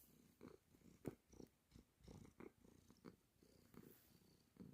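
A domestic cat purring, faint, in uneven pulses that rise and fall with her breathing.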